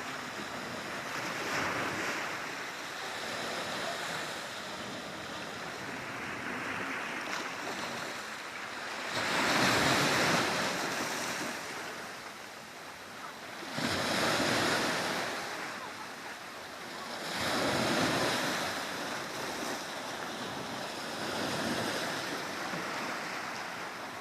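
Small sea waves breaking on the shore and washing back, swelling in a surge every few seconds, the loudest about ten seconds in.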